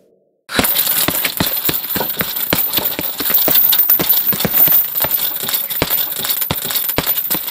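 Loud, rapid clicking and rattling, many sharp ticks a second, starting suddenly about half a second in.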